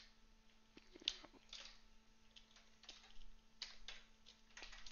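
Computer keyboard keystrokes, faint and irregular, as code is typed into a text editor.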